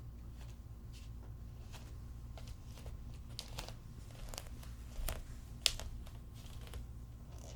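Bare feet walking: soft, irregular footfalls and skin-on-floor sounds over a low steady room hum, with one sharper slap a little past halfway.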